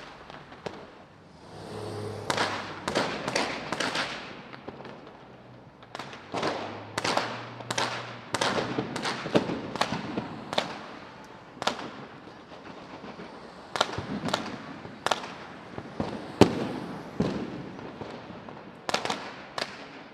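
Battle sound effect: irregular sharp cracks of gunfire and blasts, one or several a second, some with a short echoing tail, the loudest about sixteen seconds in. A low steady drone runs under the first half.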